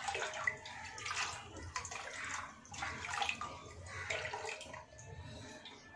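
Buttermilk pouring and splashing as a small steel mixer jar of ground spice paste is rinsed out by hand into a large pot of buttermilk, in irregular splashes that thin out near the end.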